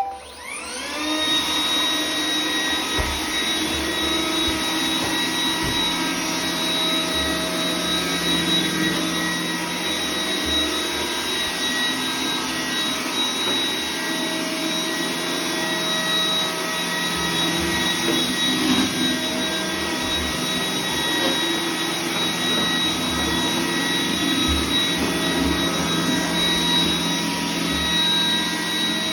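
iRobot Roomba 980 robot vacuum spinning up with a rising whine over the first second, then running steadily with a high whine over its suction and brush noise, with occasional low knocks.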